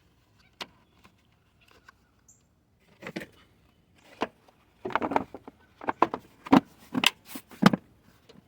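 Plastic wiring-harness clips and connectors being handled and snapped into place: a single sharp click, then a quick run of clicks, knocks and rattles.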